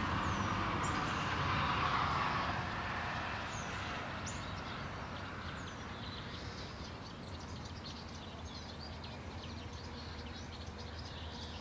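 Small birds chirping, many short high calls that fall in pitch, growing busier in the second half, over a steady outdoor background. A rushing noise fades away over the first few seconds.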